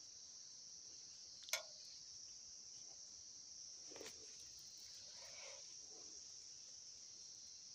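Faint, steady high-pitched insect chirring, with a sharp click about a second and a half in and a few soft knocks from hands handling the hand tractor's metal tiller tines.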